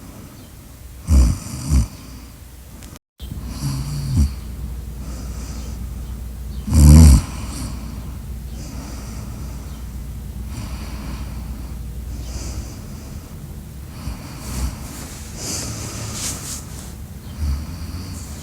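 A person snoring in sleep: a few loud, rough snores in the first half, the loudest about seven seconds in, then softer snoring breaths. The sound drops out briefly about three seconds in.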